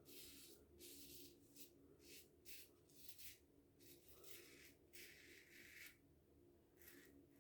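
Safety razor (Karve CB with an Astra green blade) scraping through two days of stubble in short, quiet strokes, about a dozen of them with brief pauses between, over a faint steady hum.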